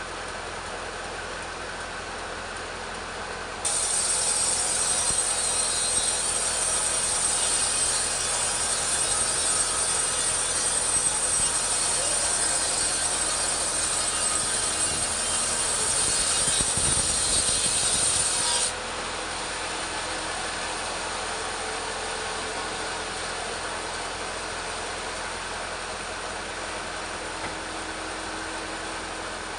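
Petrol chainsaw ripping teak lengthwise. About three and a half seconds in, the cut becomes much louder and brighter. It holds for about fifteen seconds, then drops back to the saw running at a lighter, steady level.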